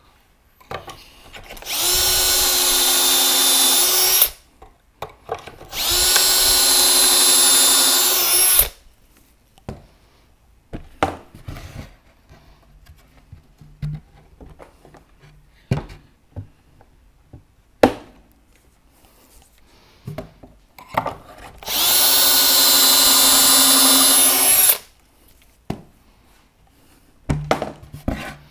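Milwaukee drill with a Kreg pocket-hole bit boring pocket holes in plywood, in three runs of a few seconds each. The first two come close together and the third about fifteen seconds later. Knocks and clicks of handling the jig and workpiece fall between the runs.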